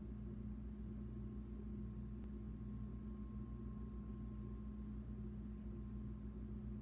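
Steady low electrical hum with a faint thin whine above it that fades out a little over halfway through.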